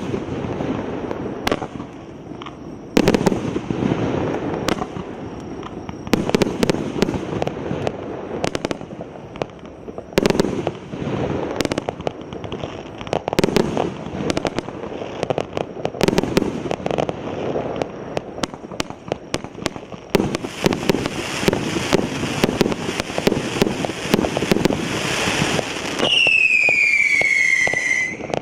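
Multi-shot consumer firework battery (cake) firing shot after shot, with sharp bangs and crackle. From about two-thirds of the way in the shots come fast and dense, and near the end a loud whistle glides down in pitch.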